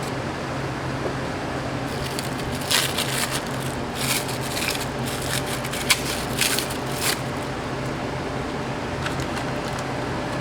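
Several short bursts of crisp crunching and crackling in the middle, over a steady hum of kitchen machinery.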